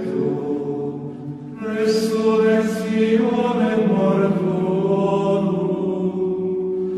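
Slow devotional hymn sung with long held notes and a short breath between phrases about a second in.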